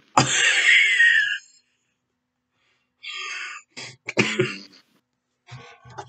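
A sleeping man's loud, raspy snoring and breathing, coming over a Discord voice call: a long rasping breath near the start, then shorter snorts and rasps, each cut off abruptly with dead silence between.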